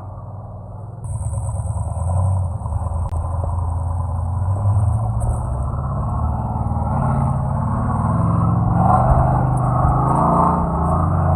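A four-wheel-drive vehicle's engine running under load, revving harder and louder from about seven seconds in, with a single sharp click about three seconds in.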